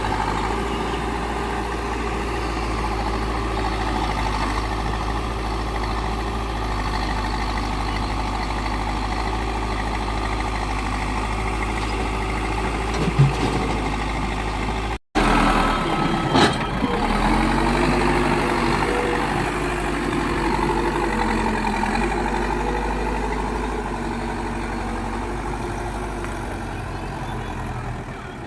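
Heavy diesel machinery engine running steadily at low revs. After a brief cut about halfway through, the engine's pitch dips and climbs as it is worked, and there are a couple of short knocks.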